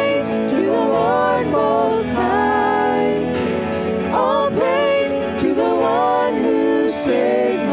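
Live worship band playing a praise song: male and female voices singing over keyboard, electric guitar and drums, with a few short cymbal strokes.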